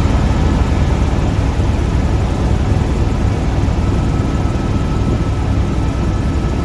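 Steady cabin noise aboard an AS 355 twin-turbine helicopter: a dense low rotor and engine drone with a faint steady turbine whine.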